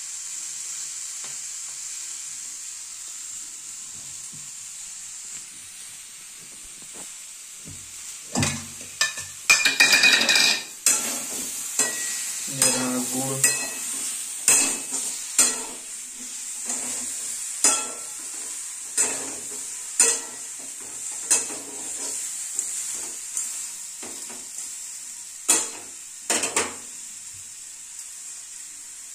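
Metal spatula clattering and scraping against a steel pan as mango pieces are stirred in hot oil, in strokes about every second or so from roughly a third of the way in, over a steady high hiss of frying.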